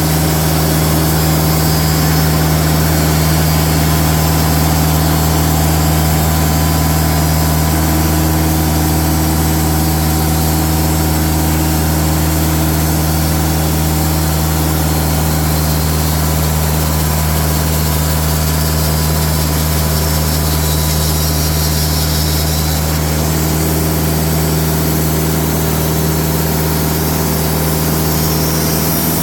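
TimberKing band sawmill's diesel engine running steadily.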